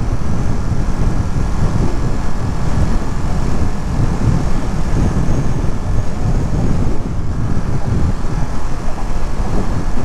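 Ducati Monster V-twin motorcycle riding at highway speed: a steady engine note mixed with a heavy, fluttering rumble of wind on the rider's microphone.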